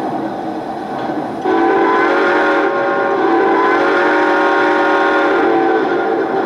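Onboard sound system of a Lionel Southern Pacific AC-9 2-8-8-4 O-gauge model steam locomotive blowing its steam whistle: a chord of several steady tones that starts about a second and a half in and is held for about four seconds, after a steady hiss.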